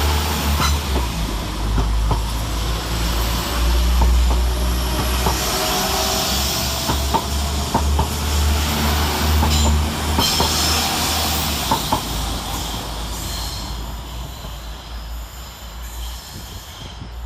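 Two coupled Class 172 Turbostar diesel multiple units pulling out, their diesel engines running under power with scattered clicks from the wheels. The sound fades away over the last few seconds.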